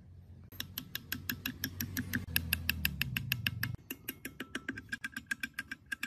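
Rapid, evenly spaced metallic clicking, about six clicks a second, from parts of an overlock sewing machine's mechanism being worked by hand during reassembly. The clicking grows quieter a little before four seconds in.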